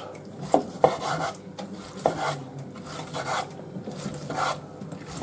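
Chef's knife sawing through a grilled rib-eye steak on a wooden cutting board: a regular run of back-and-forth slicing strokes, about two a second, with a few sharp knocks of the blade on the board in the first two seconds.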